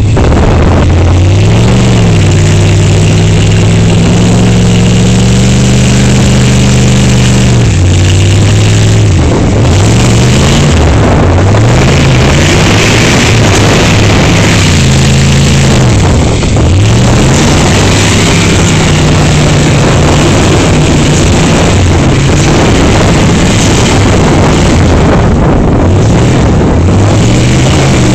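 GMC Yukon's V8 engine revving hard as the SUV churns through deep mud. The revs are held high for several seconds, then rise and fall again and again over a steady rush of noise, loud throughout.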